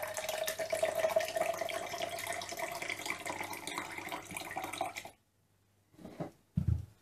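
Lemonade pouring in a steady stream from a Tupperware thermos flask into a drinking glass, stopping suddenly about five seconds in. Near the end there are two short knocks, the second with a low thud.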